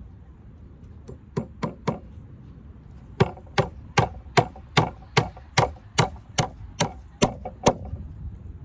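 Claw hammer nailing a lumber bracket to a wooden post: three lighter taps, then a steady run of about a dozen hard strikes, about two and a half a second.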